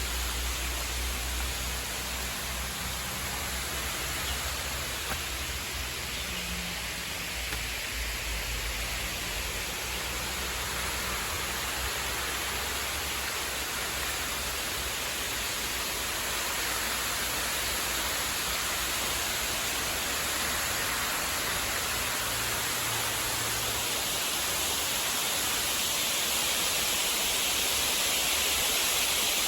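Steady rushing outdoor noise with no distinct events, growing slightly louder toward the end, with some low rumble in the first part.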